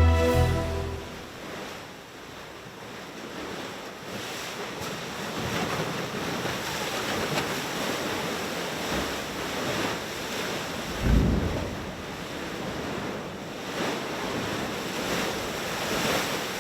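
Ocean surf washing in, in slow swells, with wind buffeting the microphone and one stronger gust about eleven seconds in.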